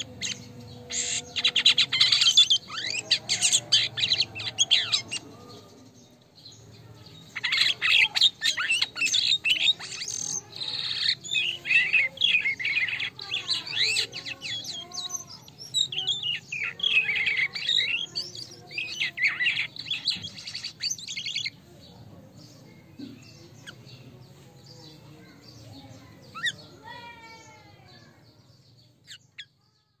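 Caged jalak kapas (white-shouldered starling) singing in full voice: a rapid, varied chatter of clicks, whistles and trills, in a short burst and then a long burst lasting about fourteen seconds. After that only a few faint scattered calls follow.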